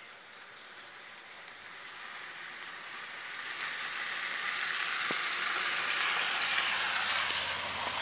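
Rustling and scraping of cables being fed along under a car's carpet and plastic trim, with the phone brushing close against the surfaces; it grows louder from about two seconds in, with a few light clicks.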